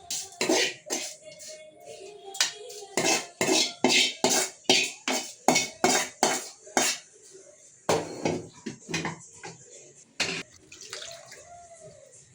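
A metal spoon or ladle clanking repeatedly against a metal cooking pot, about two to three sharp strikes a second with a short pause partway through, over faint background music.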